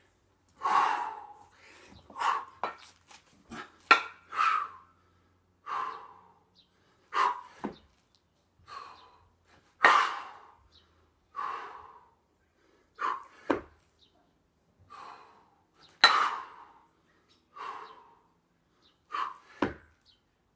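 Hard, forceful breathing from a lifter straining through double kettlebell jerks with two 28 kg kettlebells: short sharp exhalations and gasps every second or two. Three heavy dull thuds come about six seconds apart.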